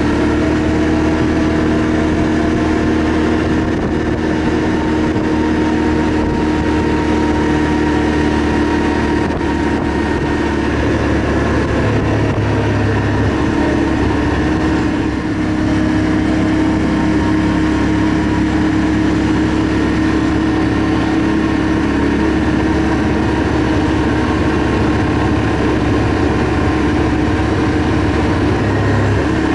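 ATV engine running steadily while riding, its pitch holding almost constant, over a rush of road noise.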